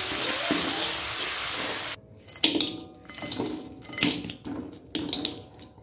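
Chili paste sizzling as it fries in oil in a wok while being stirred with a spatula. About two seconds in the sizzling stops abruptly, followed by several clinks and scrapes of a plate and spatula against the wok as fried fish and potato slices are tipped in.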